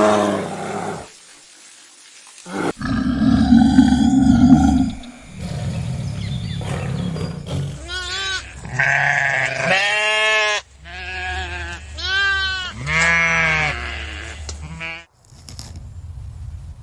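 Farm animal calls: a low, rough call near the start and again about three seconds later, then a run of four pitched, wavering bleating calls.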